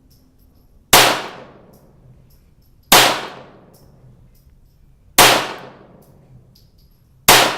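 Four shots from a CZ-75B Kadet .22 LR pistol, about two seconds apart, each a sharp crack with a ringing tail; the gun is cycling and feeding each round.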